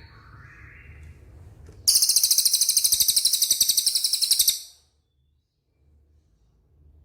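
A cililin songbird singing: soft warbled notes, then a loud, very high, rapid trill (a 'tembakan') lasting about two and a half seconds that cuts off suddenly.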